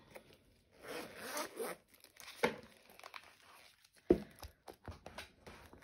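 Zip of a zip-around wallet binder being pulled open with a rasp lasting about a second, followed by handling clicks and a sharp knock about four seconds in as the wallet is opened out.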